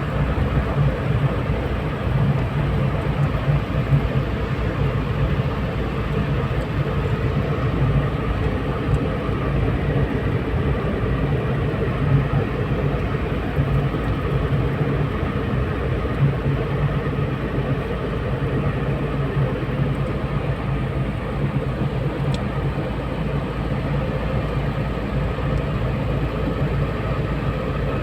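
Steady road noise from a car being driven: an even low rumble of engine and tyres.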